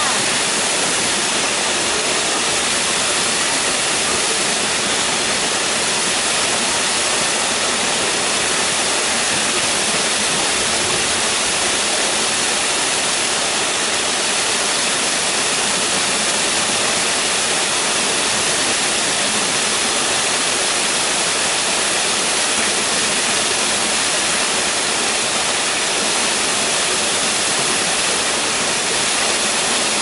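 Small waterfall pouring down a rock face and splashing into a pool: a steady, even hiss of falling water that doesn't change.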